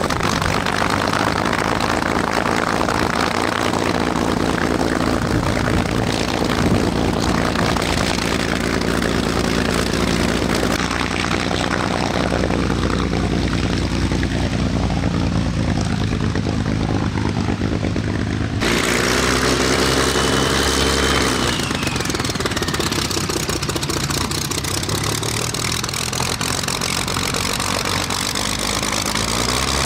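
Messerschmitt Bf 109's V12 piston engine running at idle and low power, propeller turning. The sound changes abruptly twice where separate recordings are spliced together.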